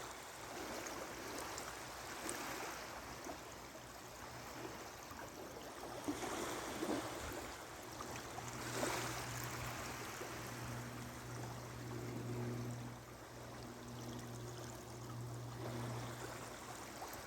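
Small ocean waves washing and lapping over a sand bar, in a steady rush of water that swells every few seconds. About halfway through, a faint steady low hum comes in underneath.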